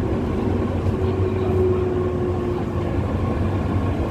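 Nankai 2000 series electric train running along the line, heard from inside the driver's cab: a steady rumble of wheels on rail, with a faint steady whine that fades out about three seconds in.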